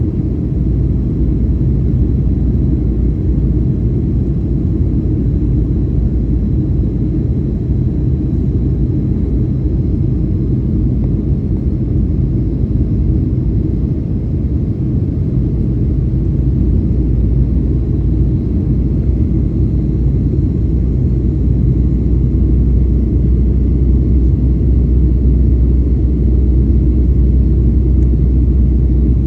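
Steady low rumble of a Boeing 737 heard inside the passenger cabin, from its jet engines and the air rushing past the fuselage, with a faint steady high whine. It swells a little past the middle.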